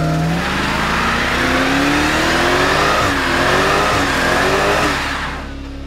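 Ford Falcon XR8 Sprint's supercharged V8 held at high revs during a burnout, the rear tyres spinning and screeching on the tarmac. The engine note climbs slowly, then the revs drop and the tyre noise stops about five seconds in.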